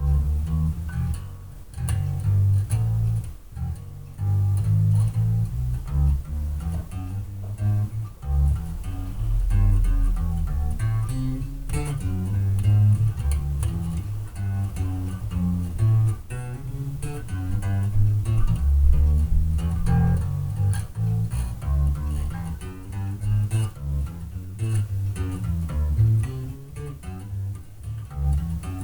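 Electric bass with fresh strings played through a bass amplifier cabinet: a continuous line of low plucked notes, heard through a webcam microphone across the room.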